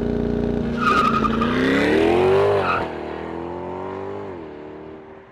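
A C8 Corvette's LT2 V8 accelerating hard from a launch. Its pitch climbs, then drops sharply at an upshift about two and a half seconds in and again near the end, and it grows quieter as the run goes on.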